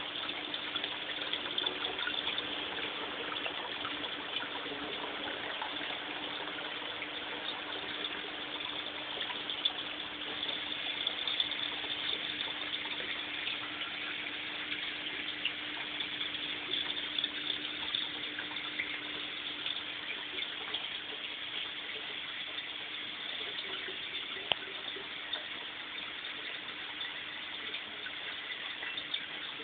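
Water pouring and splashing steadily into koi tanks from inlet pipes, an unbroken rushing, with a steady low hum underneath.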